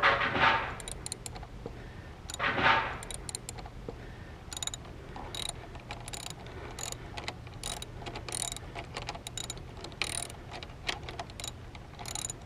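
Ratchet socket wrench clicking in short, irregular runs as a motorcycle front brake caliper bolt is run in, with two short louder noises in the first three seconds.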